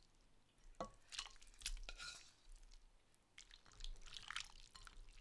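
Faint wet drips, splashes and squelches as chicken pieces and pork belly cubes go into a soy sauce and vinegar marinade in a glass bowl. They come in two short clusters of small clicks, one about a second in and another in the second half.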